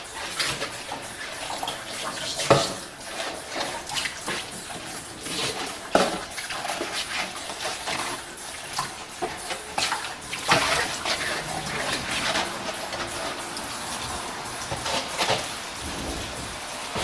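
Washing dishes by hand under a running tap: a steady flow of water with irregular clinks and knocks of dishes and cutlery being handled in the sink.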